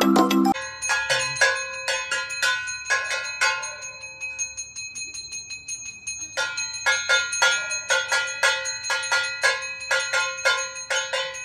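Handheld puja bell rung rapidly during the aarti, about four strokes a second, each stroke ringing on. The ringing stops for about two seconds midway, then starts again.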